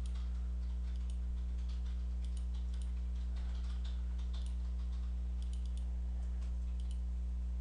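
Scattered faint computer mouse clicks in irregular bunches, over a steady low electrical hum.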